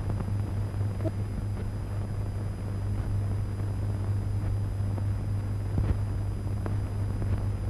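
A steady low hum with hiss and scattered crackles and clicks: the background noise of a worn 1930s optical film soundtrack.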